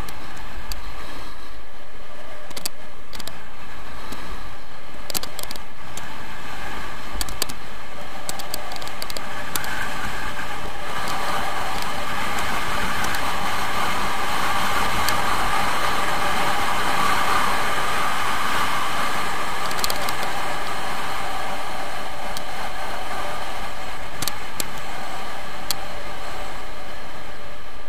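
Skiing at speed on groomed snow: wind rushing over the camera microphone together with the hiss and scrape of the skis. It grows louder through the middle as the run speeds up, with scattered sharp clicks from the skis on the hard snow.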